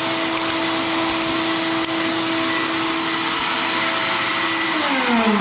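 Media blast cabinet running: a loud, steady hiss of blasting air and grit with a motor hum underneath, used to strip corrosion from metal locomotive-horn parts. Near the end the hum falls steadily in pitch as a motor winds down and the hiss eases.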